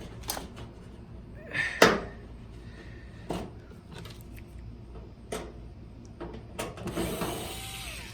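Handling knocks and clicks on a flat-screen TV's plastic back panel and screws as the set is opened, the loudest about two seconds in. Near the end there is a longer scrape.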